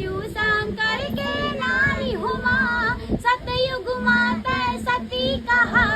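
A girl's high voice singing a jas geet, a Chhattisgarhi devotional song to the goddess, with a steady low tone held beneath it.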